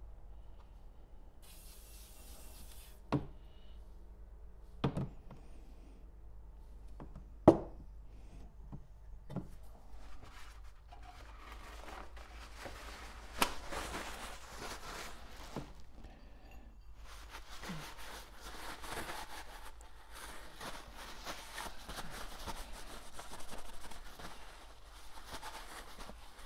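A brief hiss of aerosol spray, then several sharp knocks as carburettor dashpots and the spray can are handled and set down in a cardboard box, the loudest about seven seconds in. From about halfway through, a long stretch of rubbing as the dashpots are wiped with a cloth to clean off a sticky residue.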